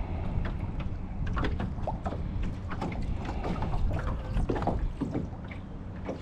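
Wind rumbling on the microphone while choppy water laps against the hull of a small fishing boat, with scattered irregular knocks and splashes.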